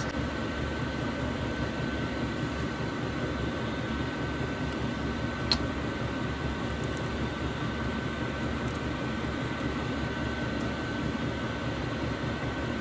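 Steady mechanical whir with a faint high whine running through it, and a single sharp click about five and a half seconds in as the oil bottle's cap is worked open.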